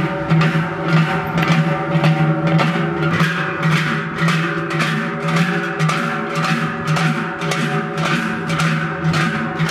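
Large joare cowbells strapped to the backs of Basque joaldunak, clanging together in a steady marching rhythm of about two strikes a second, their tones ringing on between strikes.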